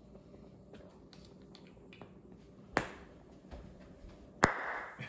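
A plastic Easter egg rocket pops near the end: the carbon dioxide from an Alka-Seltzer tablet fizzing in water blows the top off with one sharp pop, followed by a short hiss. About a second and a half earlier there is a lighter single click.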